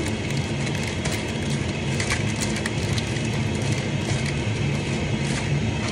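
Hands mixing oiled raw chicken and potato chunks in a paper-lined baking tray, giving scattered soft crackles and rustles, over a steady low hum.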